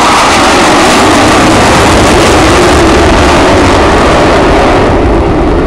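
Four Blue Angels F/A-18 Hornet jets passing overhead in diamond formation. The jet roar is very loud, and its pitch falls as they pass. It begins to fade near the end.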